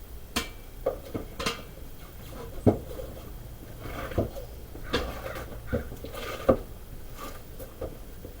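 Irregular metal clinks and knocks, about a dozen short strikes, as the steel split lock ring is worked into place on a truck's split-ring rim.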